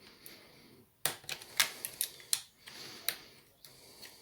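Irregular sharp clicks and taps of tools and small parts being handled on an opened laptop, starting about a second in.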